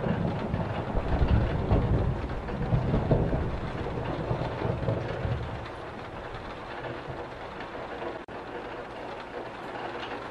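Steady rain with a low rolling rumble of thunder that dies away about halfway through, leaving the rain alone.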